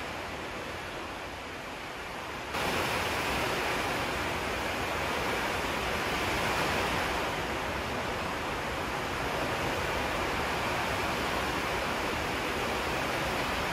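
Steady rushing hiss of background noise, stepping up louder and brighter about two and a half seconds in and then holding even.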